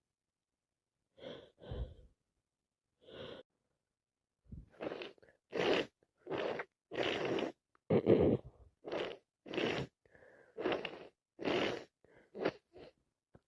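A woman with a head cold gasping and sneezing. A few short breathy bursts come first, then from about four and a half seconds in a fast run of a dozen or so, roughly one every half second to second.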